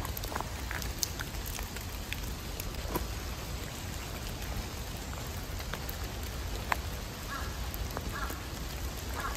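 Steady rain falling on forest trees, with scattered drops ticking on leaves and the wet path. A crow caws a few times near the end.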